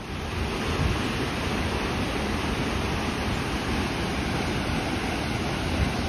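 Steady wind and sea surf at the shore, with a low rumble of wind buffeting the microphone.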